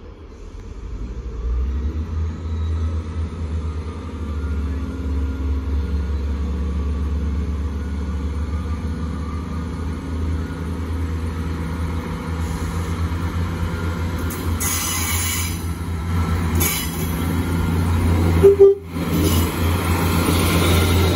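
A Class 158 diesel multiple unit running into the platform, its diesel engines rumbling louder as it nears, with bursts of high-pitched hissing partway through. About eighteen seconds in there is one short horn toot, and the sound cuts out for an instant just after it.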